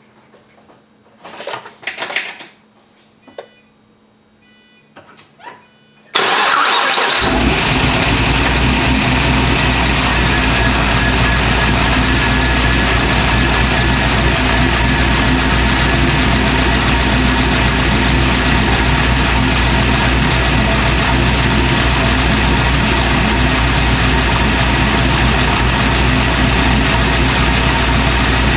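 Pontiac GTO's V8 engine, quiet at first with a few clicks, then cranking and catching about six seconds in, and idling steadily from there.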